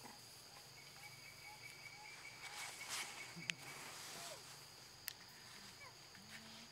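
Faint forest ambience: a steady high insect drone, joined for a few seconds by a thin held tone, with scattered faint chirps and a couple of sharp clicks.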